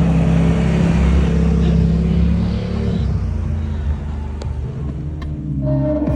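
Car driving along, with a steady engine hum and road and tyre noise.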